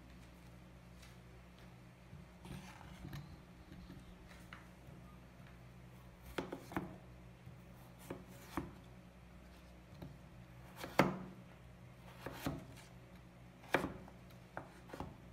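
Chef's knife slicing through peeled raw potatoes and knocking on a wooden cutting board: soft handling sounds at first, then irregular sharp chops from about six seconds in, the loudest near eleven seconds. A faint low hum runs underneath.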